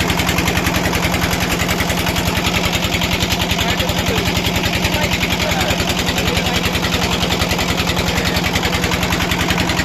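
A small engine running steadily close by, with a rapid even pulse.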